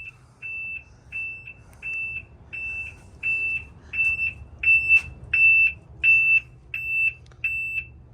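Truck reverse alarm, newly fitted, beeping: a shrill single-pitched beep repeating at a steady rate of about one and a half beeps a second, growing louder about halfway through.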